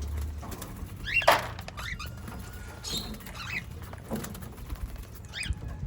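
Small pet parrots chirping in short, scattered calls, with one sharp, louder sound about a second in, over a low steady hum.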